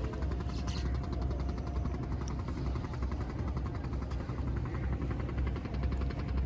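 An engine running steadily: a low, even rumble with a fast, regular beat and no change in speed.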